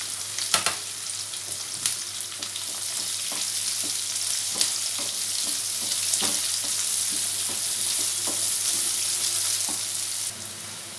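Sliced onions sizzling in hot oil in a nonstick kadhai, stirred with a wooden slotted spatula that scrapes and knocks against the pan. The sizzle slowly gets louder, then drops off sharply near the end.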